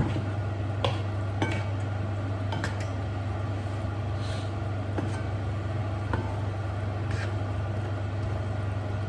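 Cooking utensils clinking and knocking against a pan several times while food is stirred, over a steady low hum.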